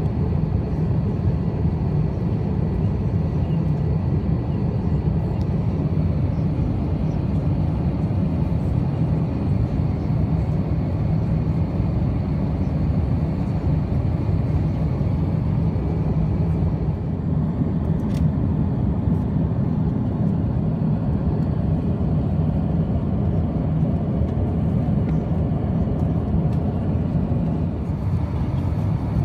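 Steady cabin noise of an Airbus A350-900 airliner in cruise: a constant deep rush of airflow and engine noise, heard from inside the passenger cabin.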